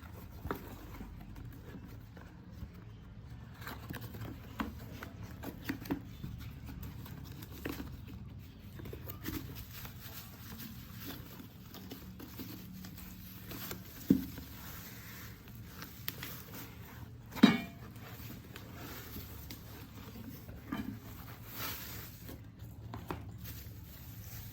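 Scattered small clicks, taps and rustles of a parcel's contents and fishing tackle being handled, with two louder knocks in the second half.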